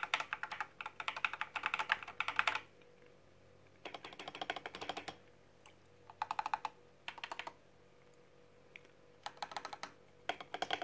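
Mechanical keyboard (Gamakay LK67 with PE foam and a paper tape mod) typed on in quick bursts of keystrokes with short pauses between. The runs of clicks last from half a second to about a second and a half, with one lone keypress in a gap before the last runs.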